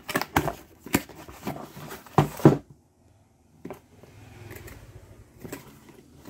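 Cardboard product box being handled and opened on a table: a quick run of scrapes, rubs and knocks of cardboard, loudest about two seconds in, then a brief pause and a single tap.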